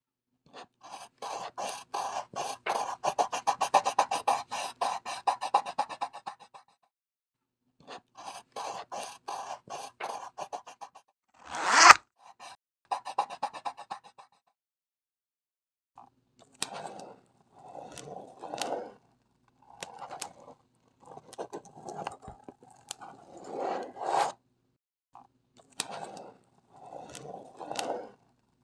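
Pastel and ballpoint pen scraping across paper in drawing strokes: a fast run of short hatching strokes, a single louder, longer scrape about twelve seconds in, then slower, spaced groups of strokes.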